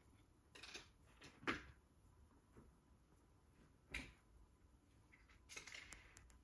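A few faint, sharp taps and clicks on a wooden floor, the loudest about a second and a half in and another about four seconds in, as a cat bats and carries a small plastic spring toy; near the end, a soft scratchy rustle.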